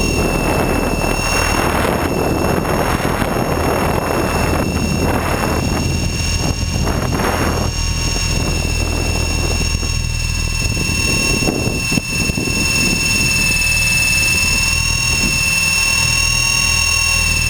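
A Titan X50 FPV model plane's motor and propeller run at a steady pitch in flight, heard from a camera on board. Wind buffets the microphone in gusts, heaviest in the first half.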